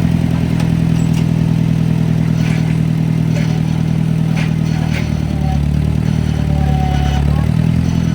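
Engine of the 1010 held at high revs under heavy load while it strains to pull a chained cannon and its concrete pedestal. The engine eases off briefly past the middle and picks up again near the end, with a few light clanks.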